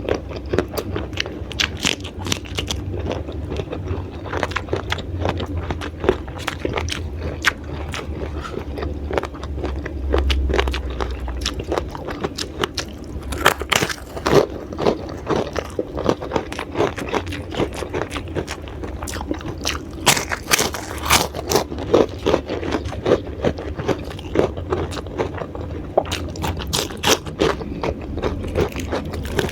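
Close-miked crunching and chewing of raw vegetables, with many sharp crunches coming thick and fast at times.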